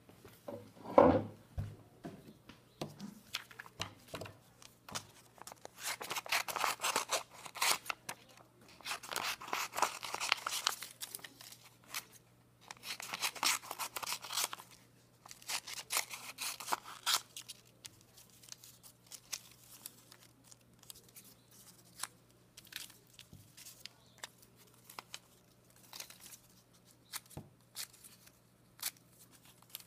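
Scissors cutting through a sheet of thin printed paper in several long cuts, each lasting a second or two, followed by shorter, fainter snips and clicks. A single knock sounds about a second in.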